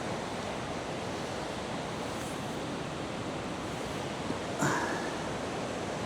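Steady rushing of a fast river running over rocks and cascades. About two-thirds through there is one brief, sharper sound.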